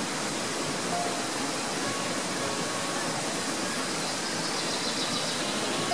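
Steady rushing of a stream's flowing water, with faint music notes starting to come in over it.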